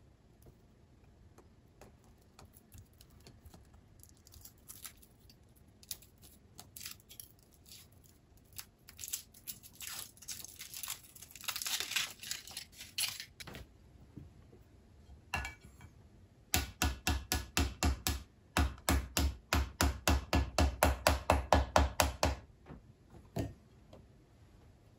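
Foil wrapper of a Kinder Surprise chocolate egg crinkling and tearing as it is peeled, irregular crisp crackles over several seconds. Later comes a loud, even run of sharp clacks, about four a second, lasting some six seconds.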